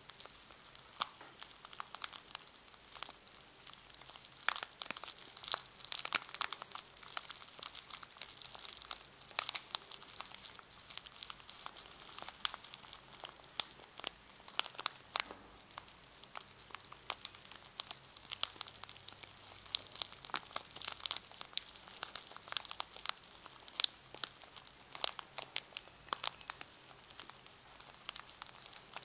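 Packaging around a brush being handled and crinkled, giving a continuous stream of irregular, sharp crackles.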